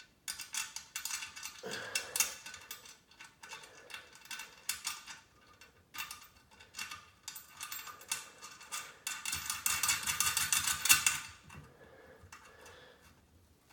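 Metal washers and hex nuts clinking and rattling as they are fitted onto a toilet's tank bolts: a run of quick light clicks, thickening into a denser rattle about ten seconds in.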